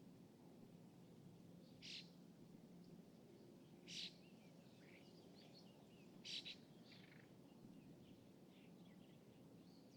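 Small birds chirping: three short, sharp calls about two seconds apart, the last one doubled, with fainter twittering in between. Underneath runs a quiet, steady low hum of distant city background.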